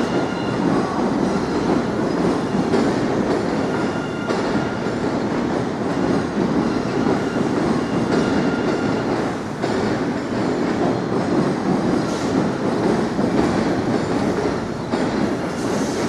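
A train running past on the rails: a steady, loud rolling rumble of wheels on track, with faint thin high tones from the wheels.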